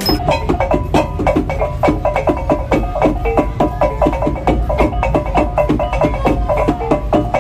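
Background music: an up-tempo piece driven by quick, evenly spaced pitched percussion strikes over a steady low bass.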